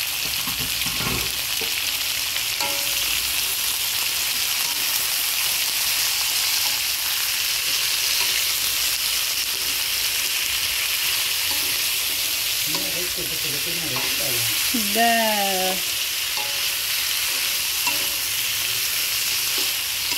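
Vegetables (string beans, okra, eggplant and chilies) sizzling as they fry in an aluminium wok, stirred with a wooden spatula. A brief pitched sound stands out about fifteen seconds in.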